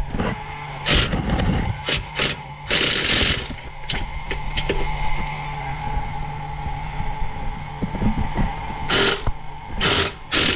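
Cordless impact driver with a long socket extension working on an underbody bolt, running steadily with several louder bursts. The bolt is stuck and does not come loose.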